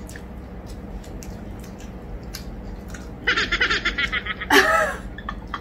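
Faint small clicks at first, then about three seconds in a quick run of giggling, followed by a louder laugh.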